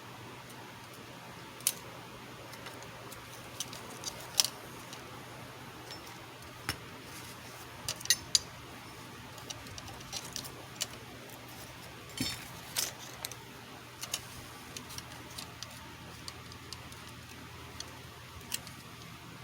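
Irregular light clicks and taps of small tools being handled on a workbench, about twenty over the stretch with a cluster around the middle, over a steady low hum.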